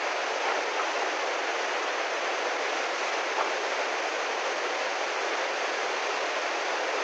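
Muddy flash-flood water rushing in a torrent under a road bridge: a steady, unbroken rushing noise.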